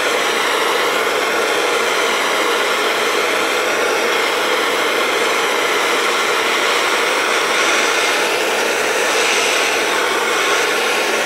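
Acetylene torch with a number 4 tip burning with a steady, even hiss as its flame heats a crucible of sterling silver to melt it.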